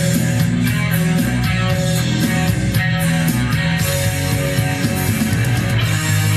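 Rock music with guitar, playing continuously at a steady level.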